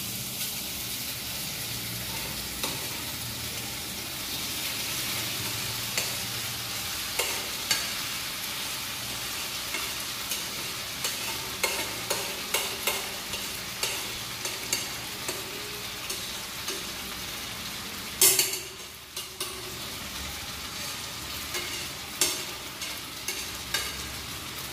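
Boiled rice sizzling steadily as it goes into hot oil in a nonstick kadai, with repeated light clicks and scrapes as it is scraped off a plate into the pan, and one louder knock about three-quarters of the way in.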